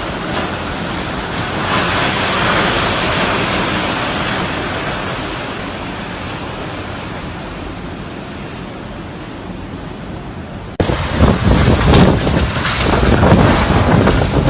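Strong typhoon wind: a gust swells about two seconds in and slowly dies away. After an abrupt cut near the end, heavier wind buffets the microphone with a gusty rumble.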